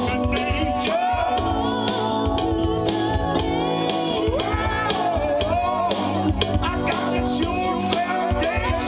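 A man singing a gospel song into a microphone, with electronic keyboard accompaniment and a steady beat.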